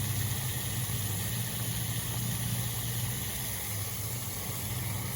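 A steady, low mechanical hum, like an engine running at idle.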